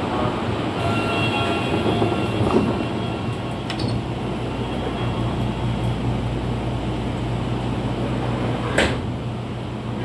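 Interior of a Tobu 30000 series commuter train car in a subway tunnel: a steady running rumble and low hum as it pulls out of the station. A few faint steady tones sound in the first few seconds, and a single sharp knock comes about nine seconds in.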